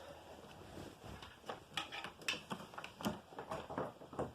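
Handling noise: irregular light clicks, taps and knocks, several a second, with no motor running.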